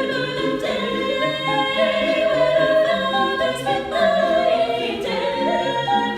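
A choir singing in harmony, several voices holding long chords that change every second or so.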